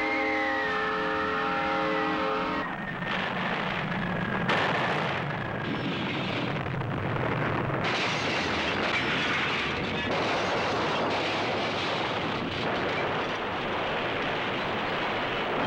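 A train horn blowing a chord, cut off after about two and a half seconds, then a loud, rough, continuous roar with crashes: a tornado tearing through town.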